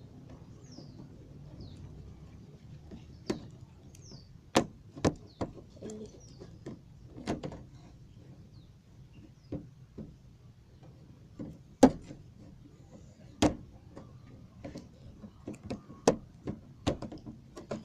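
Irregular sharp clacks and knocks, a dozen or so, the loudest about twelve seconds in: a utensil striking the container as a slime mixture is stirred.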